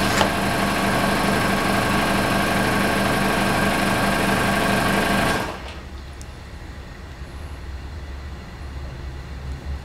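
A workshop machine's motor running steadily with a fast pulsing rhythm, then shutting off suddenly about five seconds in, leaving a quieter low hum.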